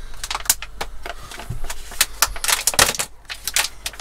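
Clear plastic wrapper on a pack of paper air fryer liners crinkling as it is picked open by hand, in quick irregular crackles.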